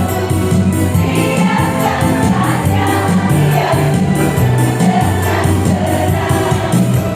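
Women's choir singing in several parts, over an instrumental accompaniment with a steady beat and a moving bass line.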